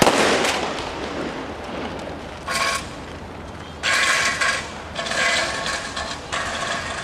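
Camcorder zoom motor whirring in several short stop-start bursts, after a sudden burst of noise at the start that fades over about a second.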